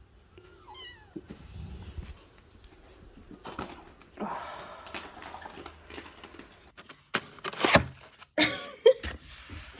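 A domestic cat meowing, with a faint short call about a second in and a longer one around the middle. In the last few seconds there is loud scuffling and knocking.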